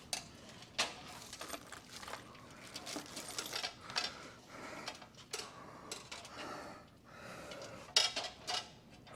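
Small metal hardware clinking and clicking as bolts, washers and fuel-line clamps are handled and fitted, a series of irregular light knocks with a sharper one near the end.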